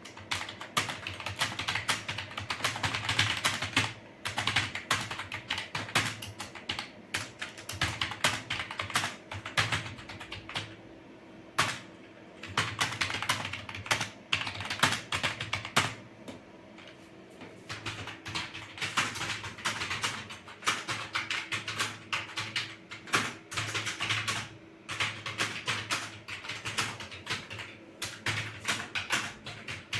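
Fast, continuous typing on a computer keyboard, a dense run of keystrokes during a timed speed test of about 58 words a minute, with short pauses now and then. A faint steady hum sits underneath.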